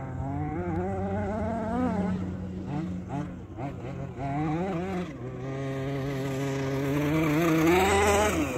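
Engine of a large-scale RC buggy revving as it is driven hard, its pitch rising and falling with the throttle; a long climbing rev in the second half, loudest near the end.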